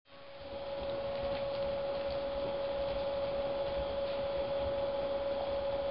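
A steady background hum: one constant mid-pitched tone over an even hiss, fading in over the first second. A few faint ticks sit within it.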